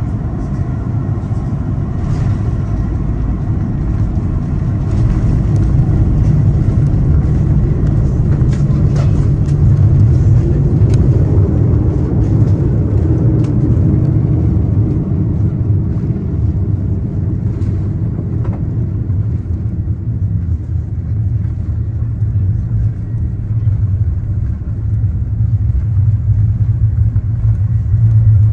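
Cabin noise inside an Airbus A340 close to the ice near landing: a loud, steady low rumble of engines and rushing air, swelling slightly in the middle and then easing.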